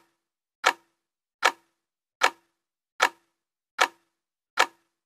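Clock-like ticking sound effect timing an on-screen intro countdown: sharp, identical ticks a little more than one a second, about seven in all, one for each number counted down.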